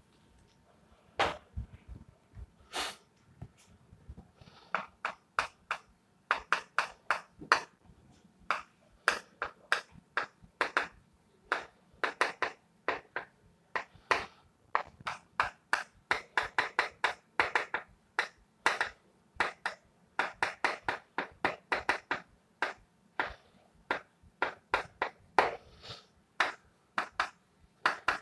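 Irregular sharp taps and clicks, often several a second in quick runs, with short pauses between the runs.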